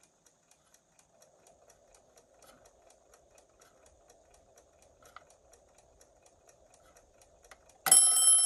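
Westclox America wind-up alarm clock ticking about four times a second, with a faint whir while its hands are turned forward with the setting knob. Near the end its alarm bell starts ringing loudly as the hands reach the set alarm time, showing that the alarm mechanism trips as it should.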